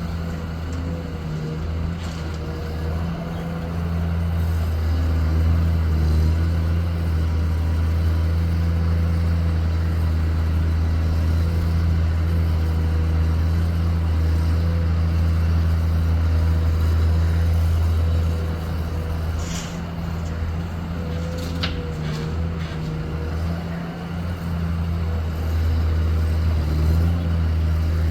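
Excavator's diesel engine running steadily with a deep hum, louder for a long stretch and easing off for a few seconds about two-thirds through before picking up again, with a few sharp knocks during the quieter part.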